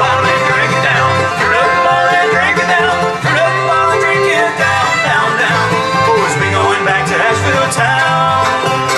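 Bluegrass band playing live: banjo, fiddle, acoustic guitar and upright bass.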